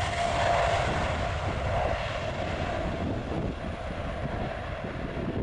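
Boeing 777-300ER's GE90 turbofans at takeoff thrust during the takeoff roll, a dense jet rumble with a faint steady whine, fading gradually as the airliner moves away down the runway.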